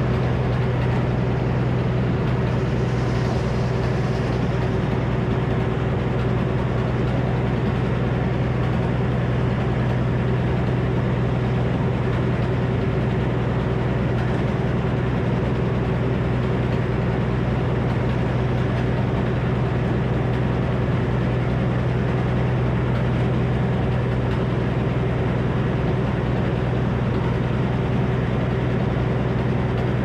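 Old Frick circular sawmill running: a steady, unbroken mechanical drone from its power unit and spinning blade, with an even hum and no change in pitch or load.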